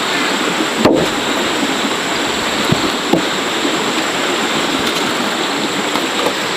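A steady rushing hiss, like flowing water, with a few soft knocks scattered through it.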